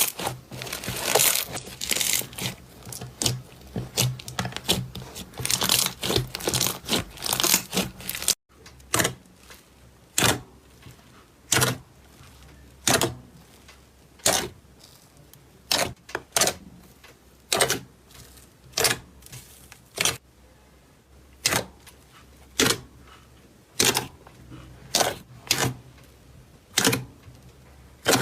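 Slime being worked by hand, giving dense crackling and popping for about eight seconds. Then, after an abrupt cut, come single sharp pops roughly once a second.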